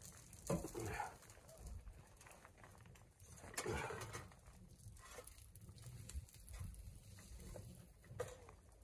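A few faint animal calls, short and separate, over a low steady rumble.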